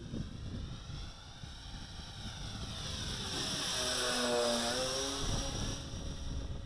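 Electric motors and propellers of a twin-motor Durafly SkyMule RC plane flying low past: a propeller whine that grows louder, is loudest about four seconds in, then drops in pitch as the plane moves away. Wind noise on the microphone underneath.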